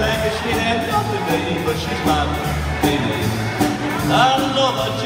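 Live swing band playing an uptempo jump-blues number: drum kit keeping a steady beat under electric bass, with a melody line over the top.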